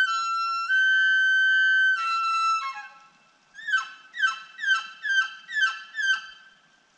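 An elk bugle: a high whistling note held for about two seconds that breaks and steps down into lower notes, followed by six quick falling chuckles about two a second.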